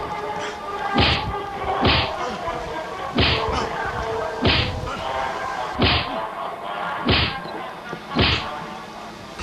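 A string of sharp punch and blow impacts from a fist fight, landing roughly once a second, about eight in all, over steady background music.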